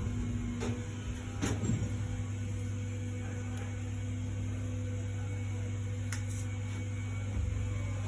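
A steady low electrical hum, with a few light clicks or taps over it.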